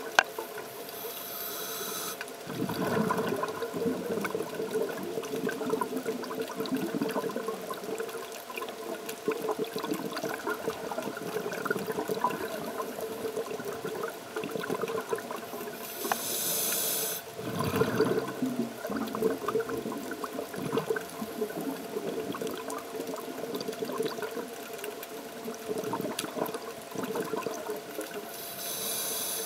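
Scuba diver breathing through a regulator, recorded underwater: a hiss on each inhale followed by a rush of exhaled bubbles, three breaths about 14 s apart, over a steady hum.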